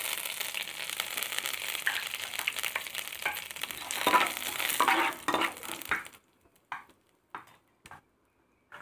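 A tempering of mustard seeds, cumin, chana dal, dried red chilli and fresh curry leaves sizzling and crackling in hot oil in a metal kadai, with a spoon stirring and scraping the pan. About six seconds in the sizzle stops, leaving only a few scattered clicks.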